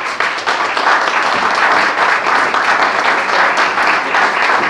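Audience applauding: many hands clapping together, steady and loud.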